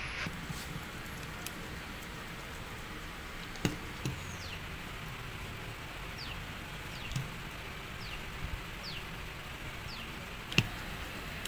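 Short, irregular scraping strokes of a hand tool working the rubber of a truck tyre under repair, each a brief falling squeak, with a few sharp knocks, the loudest near the end, over a steady hiss.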